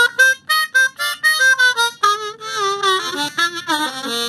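Hohner MS-series diatonic harmonica played in quick short notes and chords, with notes bent down in pitch in the second half. The harp has just been fitted with an airtight custom comb in place of its stock plastic one, and the bends come a lot easier.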